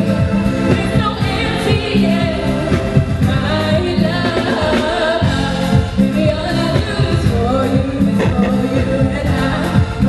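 A woman singing into a microphone over a live band playing drums and keyboards, with a steady low bass line under the melody.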